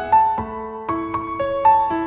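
Background music: a soft piano melody, one note struck after another, each ringing on.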